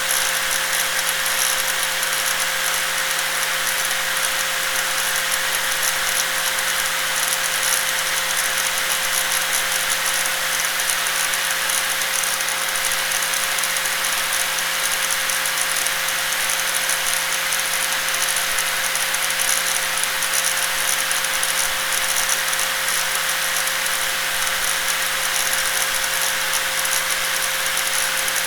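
Electric angle grinder running steadily at constant speed: an even motor whine over a hiss, with no change in pitch or level.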